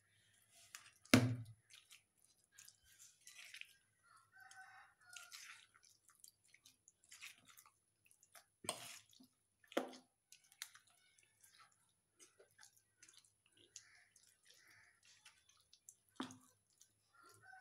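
A spoon stirring thick, oily ginger pickle in a stainless steel bowl: soft wet squelching with scattered clicks, and a few sharper knocks of the spoon against the bowl.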